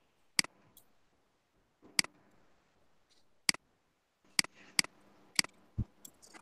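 Computer mouse clicking: about six sharp, separate clicks at irregular intervals, some heard as a quick double click of press and release.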